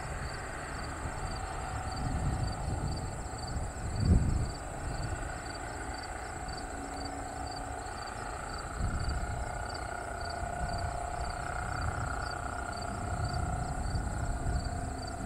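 Diamond DA-20 light aircraft's piston engine and propeller running at low power as it taxis onto the runway, a steady distant drone that rises slightly about nine seconds in. Low rumbling surges come and go beneath it, the strongest about four seconds in.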